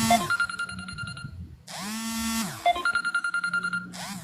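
Electronic phone ringtone repeating about every two seconds: a buzzy held tone that bends in pitch at its ends, followed by a quick run of high beeps.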